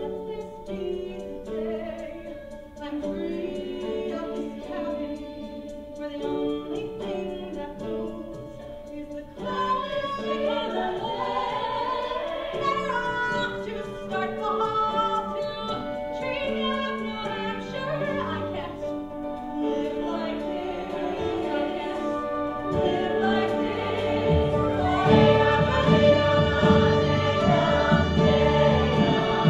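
Stage-musical number: orchestra playing, with the ensemble cast singing in chorus. The music grows fuller about a third of the way in and swells louder, with heavy bass, over the last few seconds.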